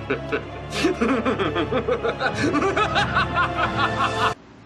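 Comedy meme audio: music with a snickering laugh over it, cutting off suddenly near the end.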